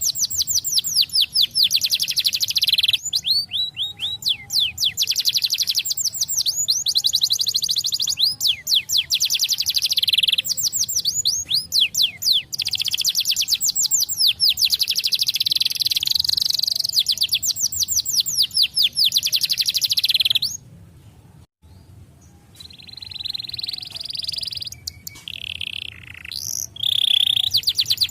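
Canary singing long rolling trills of rapid repeated high notes, phrase after phrase. About two-thirds of the way through the song stops for a couple of seconds, then resumes with different phrases.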